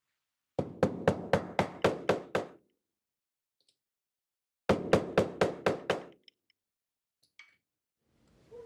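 Mallet tapping a metal pin down into a toy tractor's metal body: two quick runs of knocks, about nine and then seven strikes, some four to five a second.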